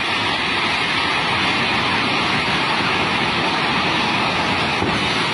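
Loud, steady rush of a river in flood, an even roar that does not change as the building falls.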